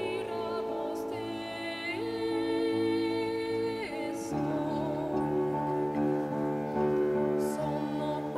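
A woman's voice singing a slow melody in long held notes with vibrato, over a soft instrumental accompaniment of sustained low notes.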